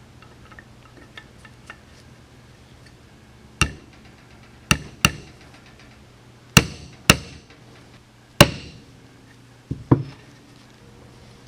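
Hammer strikes during reassembly of a .22 rifle: about eight sharp taps at uneven spacing, several ringing briefly, after a few faint clicks.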